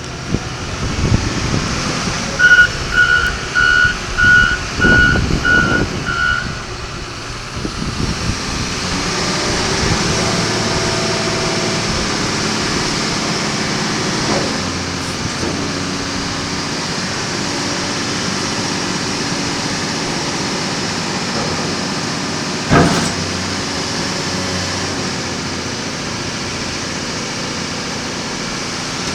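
John Deere 544K wheel loader's diesel engine running, with its backup alarm beeping seven times a little over half a second apart near the start as the loader reverses. About eight seconds in the engine note rises and then holds steady. A single sharp knock comes about two-thirds of the way through.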